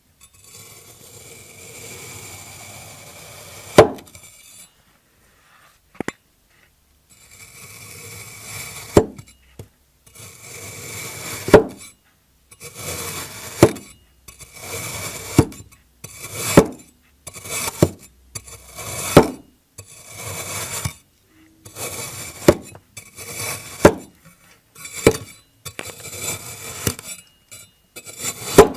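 Crunchy kinetic sand being sliced with a blade, over and over: each cut is a gritty crackling crunch that ends in a sharp click as the blade meets the surface below. The cuts come quicker and shorter in the second half.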